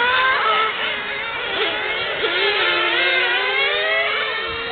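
Several radio-controlled racing cars' motors whining on the track, overlapping pitches gliding up and down as the cars speed up and slow for the corners.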